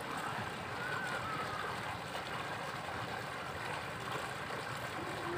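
Steady splashing and bubbling of water from a pool's small fountain jet, with faint distant voices.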